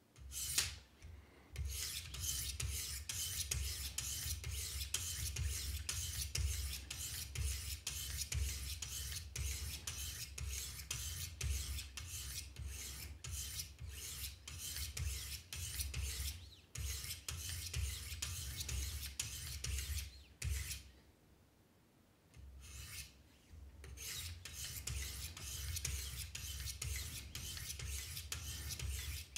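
200-grit diamond stones of a Wicked Edge guided sharpener rasping along a knife blade in quick, repeated strokes, alternating sides. The strokes break off for about two seconds roughly two-thirds of the way through, then resume.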